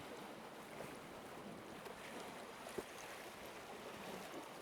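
Steady sea-and-wind noise around a small fishing boat, water moving against the hull, with one short faint knock a little past halfway.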